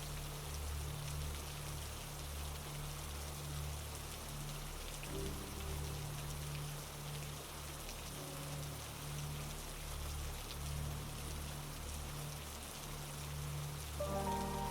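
Steady rain falling on surfaces: an even hiss flecked with fine drop ticks. Soft background music runs underneath as low pulsing tones with a few held notes, and its notes come in more strongly near the end.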